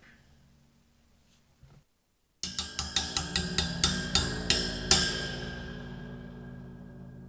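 A household object struck rapidly, about a dozen sharp hits at roughly five a second, each louder than the last. After the final, loudest hit it keeps ringing and dies away slowly.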